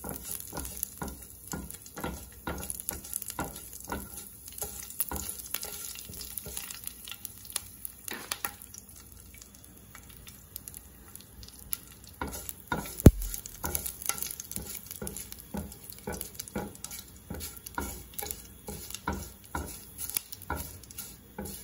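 A silicone spatula stirring and scraping curry leaves, mustard seeds and fenugreek seeds around a nonstick frying pan in hot oil, with a light sizzle under the strokes. The strokes ease off for a few seconds in the middle, and a single sharp click about thirteen seconds in is the loudest sound.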